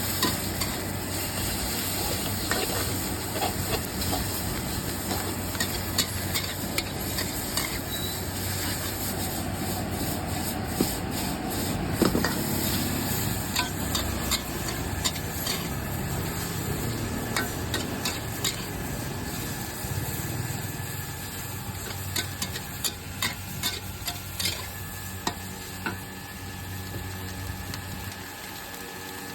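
Food sizzling in a hot pan while a metal utensil stirs it, clinking and scraping against the metal over and over.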